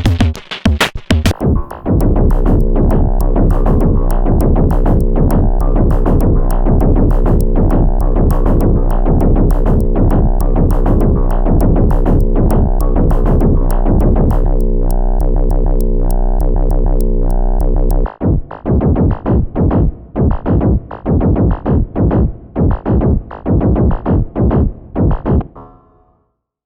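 Electronic drum pattern from the Elastic Drums drum-synth app: fast ticking hi-hats over a deep sustained bass and pitched drum hits. About two-thirds of the way through, the hi-hats and bass drop out, leaving pitched mid-range hits that fade away near the end.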